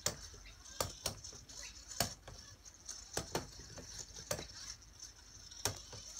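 Sphero robot balls rolling and knocking against a wooden frame: about nine sharp, irregular knocks, sometimes two close together, over a steady high hiss.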